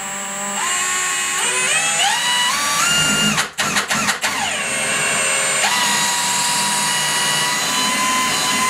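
Milwaukee Fuel cordless drill running a countersink bit into a bathtub's mounting flange. Its motor whine climbs in steps as the trigger is squeezed, cuts out briefly a few times about three and a half seconds in, then runs steady.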